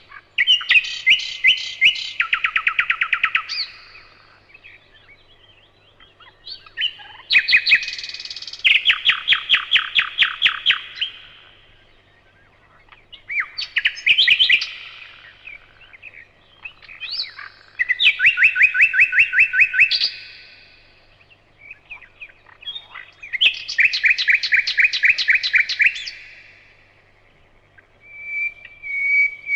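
A songbird singing the same short song again and again, every five or six seconds. Each song is a quick run of repeated notes lasting two to three seconds, dropping lower partway through.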